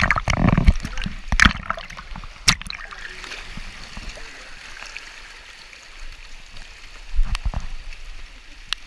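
River water splashing hard close by for the first second and a half, then rushing steadily over small rapids, with a few sharp knocks and another surge of splashing near the end.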